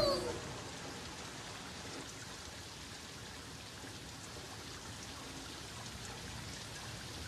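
Quiet, steady rain falling on a wet street.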